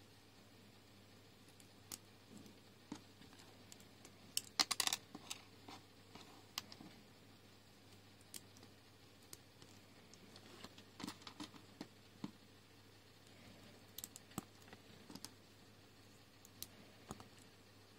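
Small plastic LEGO pieces clicking and snapping as they are handled and pressed together by hand: scattered sharp clicks, with a quick cluster about five seconds in and more around eleven and fourteen seconds.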